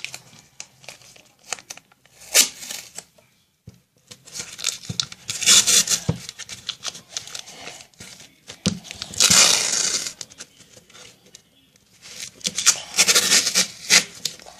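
Adhesive tape being pulled off its roll in about four pulls of a second or so each, with quieter handling noise between them.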